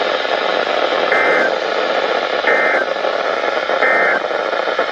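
Three short, identical buzzy data bursts of Emergency Alert System (SAME) digital tones, about a second and a half apart, over steady radio static: the end-of-message signal that closes a NOAA Weather Radio alert.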